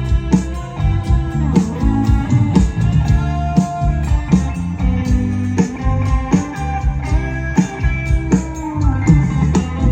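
Live band playing an instrumental piece: guitar over a full low end, with sharp drum strokes keeping a steady beat.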